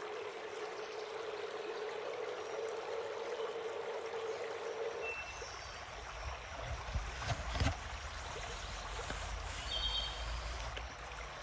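Steady rush of running river water. About five seconds in, a low rumble joins it and a few short splashes come through.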